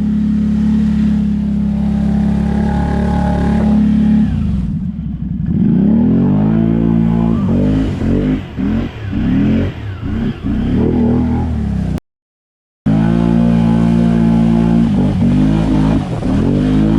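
ATV engine held at steady high revs, then revved up and down again and again. About twelve seconds in the sound drops out completely for under a second, then the revving carries on.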